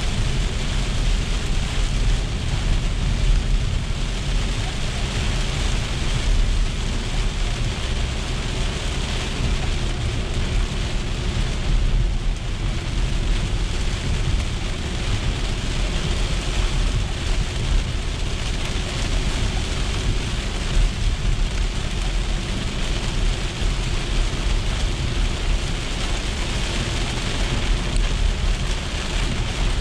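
Heavy rain falling on a moving car's windshield and roof, heard from inside the cabin, over a steady low rumble of the car on the wet road.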